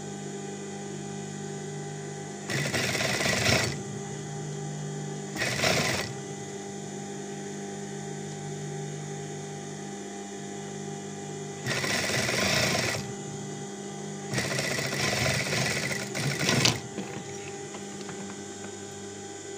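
Industrial lockstitch sewing machine stitching a collar onto a shirt neckline in four short runs, the longest near the end, with a steady hum between the runs.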